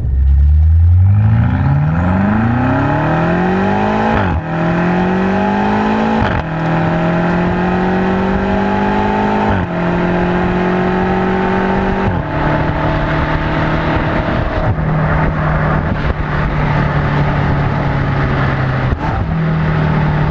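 2019 BMW M5 Competition's twin-turbo V8 exhaust under hard acceleration, the engine note climbing steeply and dropping sharply at quick upshifts about four and six seconds in. It then runs at a steadier engine speed with several more gear changes.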